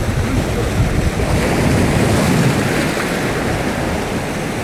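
Sea waves washing against shore rocks, with wind rumbling on the microphone; the surf swells up a little about two seconds in.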